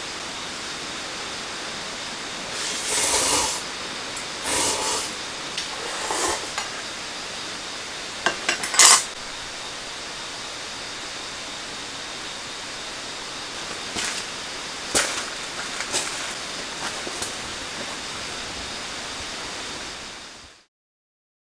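Steady rain on a tent, with scattered clinks of cookware and chopsticks and a few short louder noises; the sound fades out to silence near the end.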